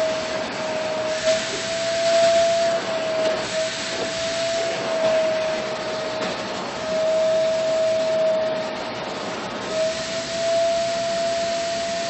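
Vacuum cleaner running as its bare hose wand is drawn over a cat's fur: a steady whine with a rushing hiss of air. The hiss swells and fades every second or two, and the whine wavers slightly in pitch.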